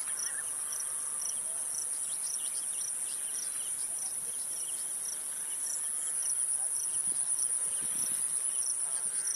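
Field insects calling steadily: a continuous high-pitched drone, with a second insect chirping in short, even pulses about twice a second.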